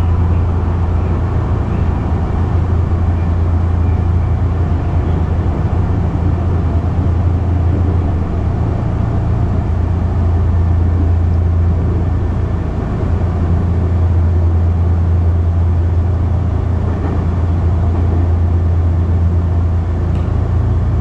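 Semboku Rapid Railway commuter train running at steady speed, heard from inside the passenger car: a steady low drone of the running gear and wheels on the rails.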